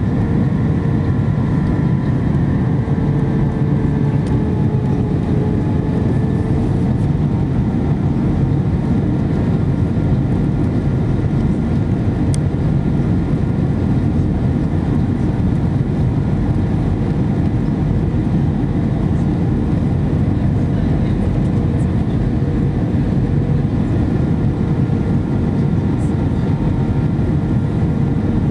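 Steady cabin noise inside an Airbus A319-114 on descent: a low, even rumble of airflow and its CFM56 engines, with a faint high whine held over it.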